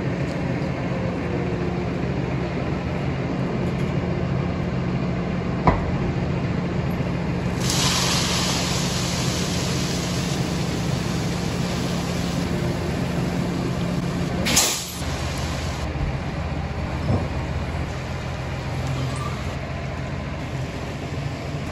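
Tractor engine running steadily while a trailer is tipped. From about 8 s in, a loud hiss of woodchip sliding out of the raised trailer body onto a concrete floor, ending in a short burst about 15 s in.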